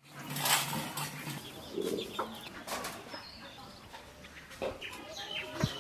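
Chickens clucking, with a run of short, varied calls and a few sharp knocks among them.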